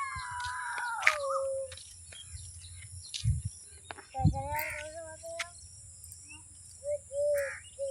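Birds chirping and calling in open countryside. A pitched call falls in pitch at the start, scattered chirps follow, and short repeated calls come near the end. Two low thumps sound in the middle.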